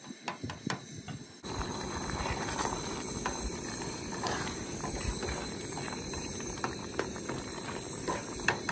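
Plastic spoon stirring stew in a metal cooking pot, with light clicks and scrapes of the spoon against the pot. From about a second and a half in, a steady rushing noise comes up underneath.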